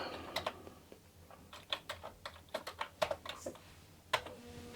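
Typing on a Commodore 64 keyboard: irregular key clicks, with a sharper click near the end. A steady hum starts just after it.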